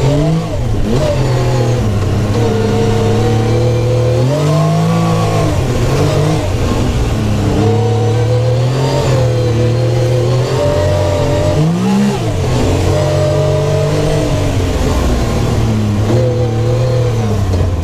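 Supercharged Yamaha YXZ1000R side-by-side's three-cylinder engine running under way, heard from inside the cab. The revs mostly hold steady but climb and drop back a few times: right at the start, about four to five seconds in, and again about twelve seconds in.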